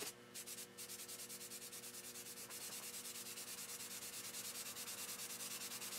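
Aerosol spray-paint can spraying yellow paint: a faint hiss that pulses evenly about eight times a second.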